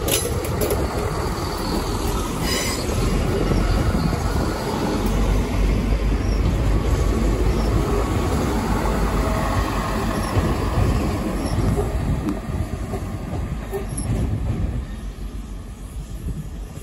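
A train running on the rails close by: a loud, steady rumble of wheels and running gear, dying down near the end.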